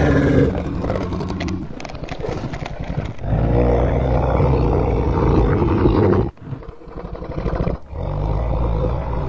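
Monster roar sound effects for the dinosaur: long, rough roars one after another, with a sharp break about six seconds in and a last roar near the end.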